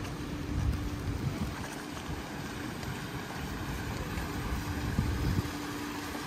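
City street ambience: a low, uneven rumble with a faint steady hum that drops out for a couple of seconds midway, and a few light clicks.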